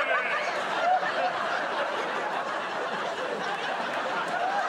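Studio audience laughing, many voices at once, holding steady through the pause.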